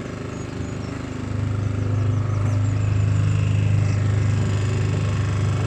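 Small hire motorboat's engine running with a steady low drone, getting louder about a second in and then holding.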